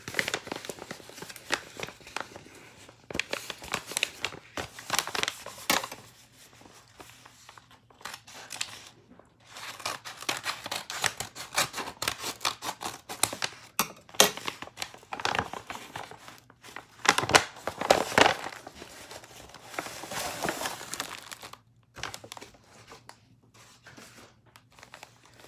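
Paper packaging crinkling and tearing as a kraft mailing envelope is opened and its contents handled, in irregular bursts with quieter stretches between.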